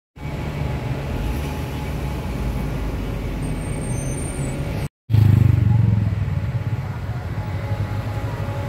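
City street traffic: cars and a bus running close by, a steady low rumble. It cuts out for a moment about five seconds in, then comes back louder as a vehicle passes.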